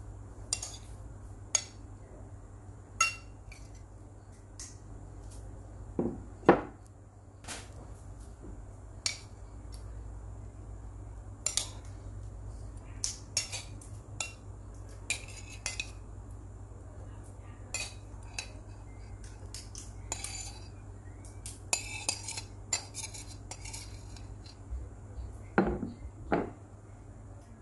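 Metal spoon clinking and scraping against a ceramic plate as stir-fried luffa with egg is spooned onto rice: irregular sharp taps, a few quick runs of clinks, and a couple of duller knocks.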